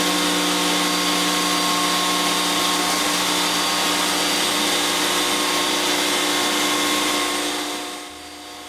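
SHMS1530A CNC router's spindle milling MDF, with its dust extraction drawing air at the cutter: a loud, steady whine over a hiss. It drops to a lower level near the end.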